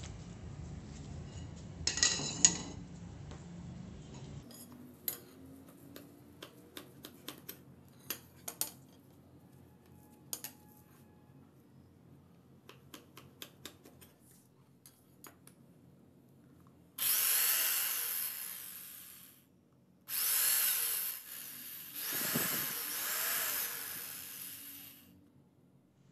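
Scattered light taps and clicks, then a power tool running in two stretches of several seconds each, its pitch dipping and recovering under load during the second.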